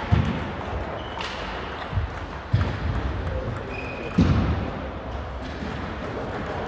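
Table tennis balls ticking on tables and bats in a sports hall, under four dull, louder thumps spread through the first half.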